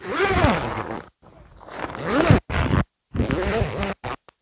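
Long zipper joining a fabric side wall to a tarp's edge being pulled along in three strokes, each rising and then falling in pitch.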